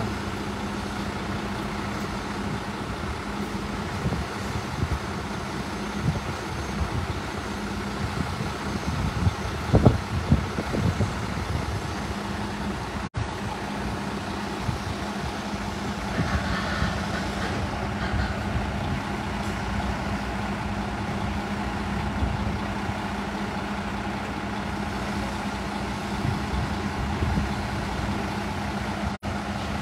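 A vehicle engine idling steadily with a constant low hum, with a few louder knocks about ten seconds in.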